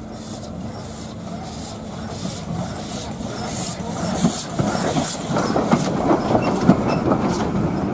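Small tank steam locomotive approaching and passing close by on rails, getting steadily louder. Evenly repeated puffs of steam give way, from about halfway through, to the clanking and clicking of its wheels and running gear over the track.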